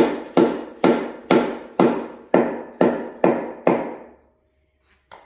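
A mallet striking the oil pan of a Ford 5.0L Coyote V8 nine times, about two blows a second, then two light taps near the end. The pan is stuck to the block on its silicone sealant and is being knocked loose.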